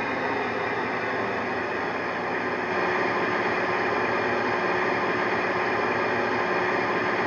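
Class 68 diesel engine sound, recorded from a real locomotive, played by a model locomotive's DCC sound decoder through its small speaker: a steady engine running note that shifts and gets slightly louder about two and a half seconds in as the model comes to a stand.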